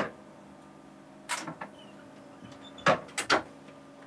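Several sharp clicks and knocks inside a tube train's driver's cab: one at the start, a pair about a second in, and a quick run of three near the end. Under them runs a steady low electrical hum.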